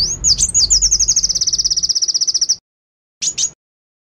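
Female cucak kinoi singing: a few high whistled glides run into a fast, even trill of about eighteen notes a second that stops abruptly after about two seconds, followed by one short high call.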